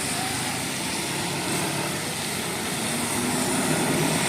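Steady traffic noise from a heavy road vehicle's engine running with road noise, growing a little louder toward the end; no horn sounds.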